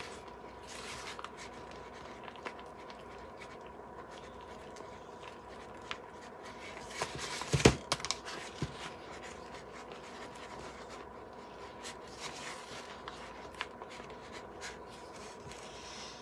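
A plastic spoon stirring thick spackle in a plastic bowl: quiet scraping and light clicks of the spoon against the bowl, with one sharp knock about halfway through. A faint steady high hum sits underneath.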